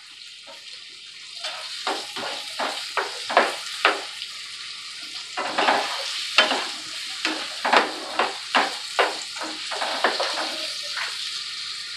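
Diced potatoes sizzling in hot oil in a nonstick frying pan, with a spatula scraping and turning them in repeated, irregular strokes.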